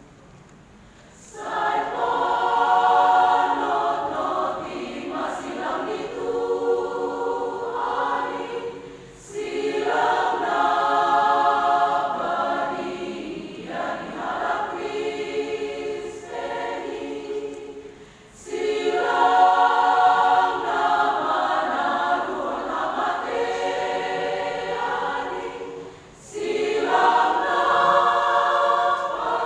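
Church choir singing in parts, in long phrases broken by short pauses for breath.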